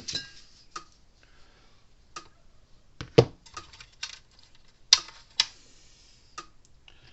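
Small metal hardware being handled and fitted: a series of separate sharp clicks and knocks, the loudest about three seconds in, as a hex-headed bolt is seated in the fence energizer.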